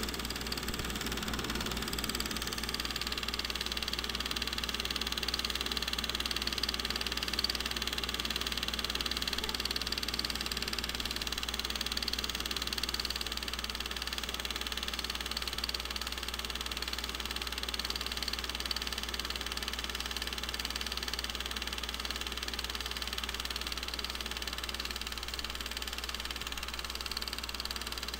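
A film projector running steadily: an even mechanical whirr and clatter over a low hum, stepping up slightly in level at the start.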